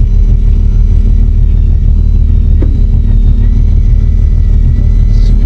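Fishing boat's engine running steadily: a loud, even low drone with a faint thin whine held above it.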